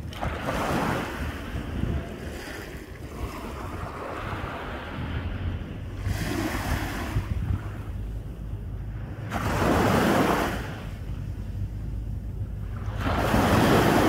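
Small waves breaking and washing up a sandy beach, swelling three times: about a second in, around ten seconds in and near the end. A low rumble of wind on the microphone runs underneath.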